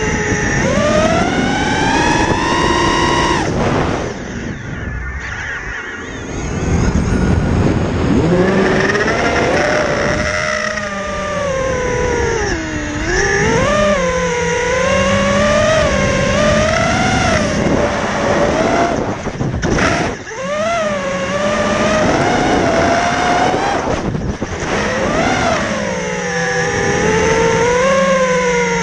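FPV quadcopter's brushless motors and propellers whining in flight, heard from the onboard camera, the pitch sweeping up and down with the throttle. The whine drops away briefly about four seconds in, and again around twenty and twenty-four seconds in, as the throttle is cut and picked up again.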